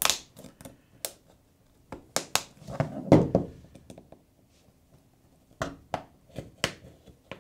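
A thin metal pry tool working between a Samsung Galaxy A20e's display and its plastic frame. The plastic housing gives a scattered series of sharp clicks and snaps as it is opened piece by piece, with a denser, louder run of clicks about two to three seconds in.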